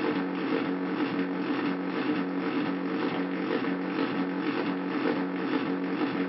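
Hand-made Arduino drone synthesizer playing a steady cluster of held tones over a noisy hiss, with the lowest tone pulsing on and off about twice a second.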